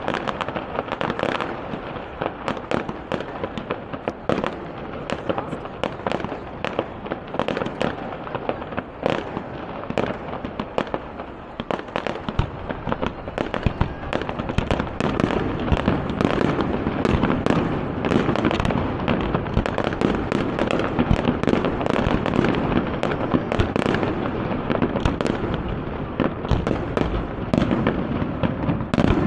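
Fireworks display: a dense, continuous run of sharp cracks and shell bursts, with deeper, heavier bursts filling in from about halfway through.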